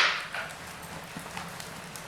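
Wood fire crackling in a fireplace: a loud pop fading away at the start, then a few small, scattered crackles over a soft steady hiss.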